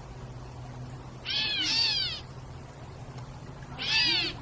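Gray catbirds giving their cat-like mew calls: a pair of mews about a second and a half in and another near the end, each a slurred cry that arches up and falls. They are scolding people standing near their nest.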